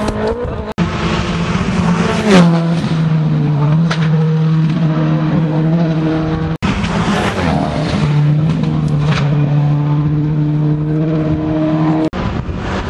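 Rally car engine running hard at high, steady revs, heard approaching along the stage, its pitch dropping sharply about two seconds in. The sound cuts out abruptly for an instant three times.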